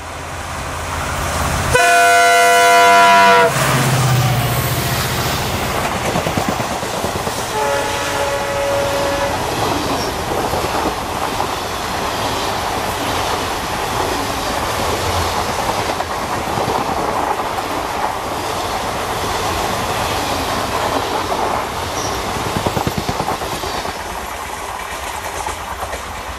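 WDP-4D diesel-electric locomotive's horn sounding one loud blast about two seconds in and a shorter, fainter toot about eight seconds in, followed by the train rolling past with a steady clickety-clack of wheels on the rail joints.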